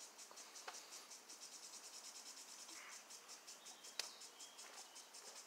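Faint, high-pitched insect chirping, pulsing about six times a second, with a single sharp click about four seconds in.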